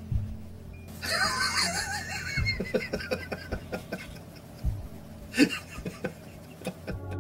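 A person laughing in short repeated bursts over a steady low hum.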